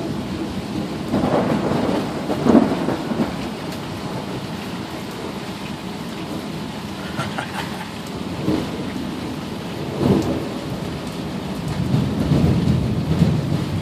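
Steady rain falling with thunder rumbling through it, loudest about two seconds in and swelling again near the end.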